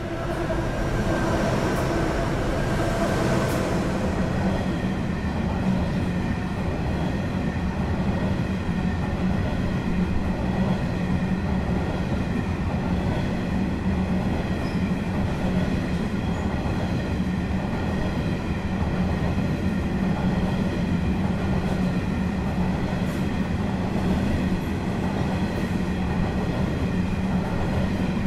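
Diesel-hauled coal train passing close by. The locomotives' engine note falls and fades in the first few seconds, then a long string of coal hopper wagons rolls past with a steady rumble of wheels on rail and thin, high ringing tones.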